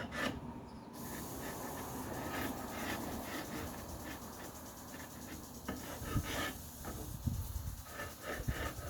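Chisel scraping old finish off a wooden tabletop: short scraping strokes at the start and again from about six seconds in, with a few seconds of steady, even rubbing hiss in between.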